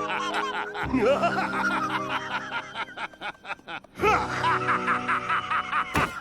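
A cartoon character's drawn-out, cackling laugh over background music. The laugh comes in two runs, with a short lull about three seconds in.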